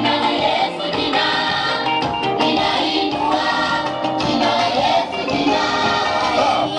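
Gospel choir singing a praise song over steady instrumental backing.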